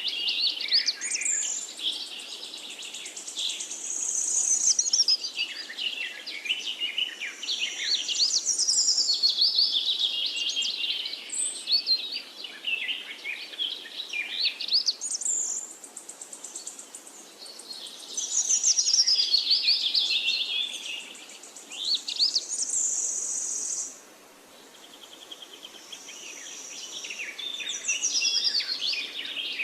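Several birds singing and chirping at once, with overlapping high chirps, trills and quick repeated phrases, and a short lull about three-quarters of the way through.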